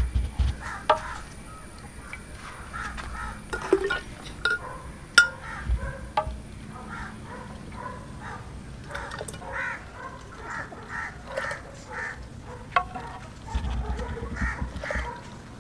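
Birds calling in runs of short, repeated calls, with a few sharp clicks scattered through.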